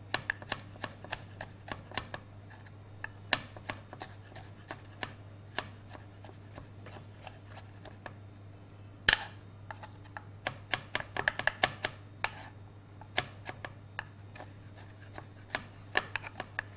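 Kitchen knife chopping fresh garlic cloves and ginger on a wooden chopping board: irregular sharp taps of the blade, bunching into quick runs of strokes in places, with one louder knock about nine seconds in. A faint steady low hum lies underneath.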